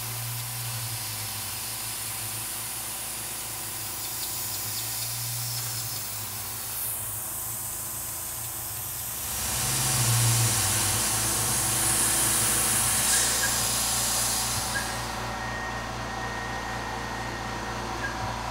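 Tormach 440 CNC mill cutting hardened S7 tool steel with a 1/8-inch end mill at 1500 RPM, under a steady hiss from the chip-clearing nozzle blowing on the cut, over a low machine hum. About nine seconds in the hiss grows louder for several seconds, then the high hiss drops away about fifteen seconds in, leaving the hum and a faint steady whine.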